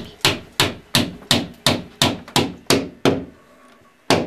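A hammer striking at the ceiling overhead from a ladder, a fast, even run of blows at about three a second. The blows stop a little after three seconds, and one last strike comes near the end.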